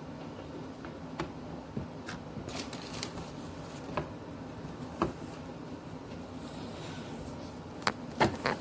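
Freight cars of a CSX manifest train rolling past, with a steady low rumble and irregular sharp clicks and clanks, the loudest cluster near the end.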